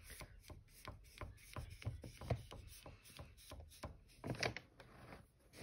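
Wax crayon making short, hard strokes on paper: a quick, irregular series of faint taps and scratches, several a second.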